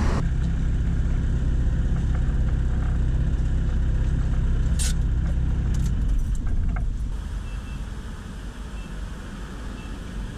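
Inside the cab of a 1984 Dodge D50 pickup: the steady low rumble of the engine and road while driving. About halfway through come a few sharp clicks and a jingle of keys, then the rumble drops away to a quieter hum.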